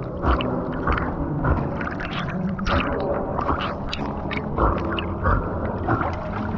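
Water sloshing and splashing around a swimming dog, picked up close by a camera mounted on the dog, with many short irregular splashes and crackles.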